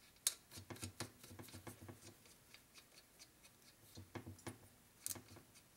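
Faint clicks and small metal clinks of cylinder base nuts being handled and started on the studs of a Harley-Davidson shovelhead engine. They come in two bursts, the sharpest click near the start.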